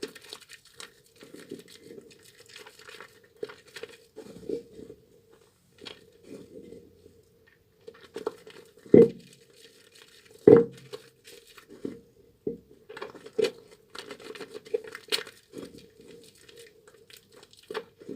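Soaked, softened bar of tar soap being lathered and squeezed in wet hands: irregular squishing and crackling, with two louder wet thuds near the middle.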